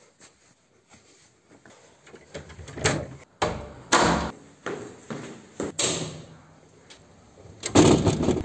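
Faint rustling, then a series of sharp knocks and clicks from a wooden door's latch and brass knob as the door is opened and shut, and a louder metal clatter near the end as a wrought-iron gate's latch is worked.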